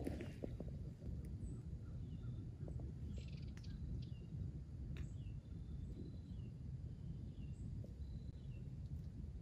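Quiet woodland ambience: a steady low wind rumble on the microphone, with small birds giving short, scattered high chirps and a few faint clicks a few seconds in.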